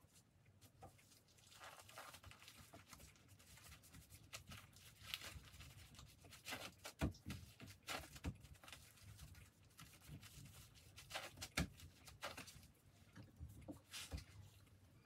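Faint rustling and soft taps of gloved hands rolling and pressing a sushi roll in a rolling mat on a cutting board, with a few sharper taps in the second half.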